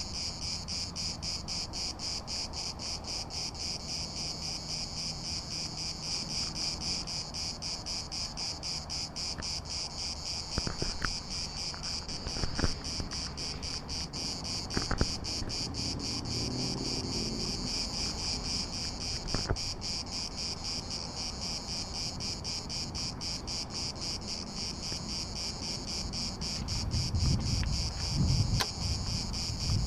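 Insects chirring in a steady, fast-pulsing high drone. There are a few sharp knocks in the middle and a low rumble near the end.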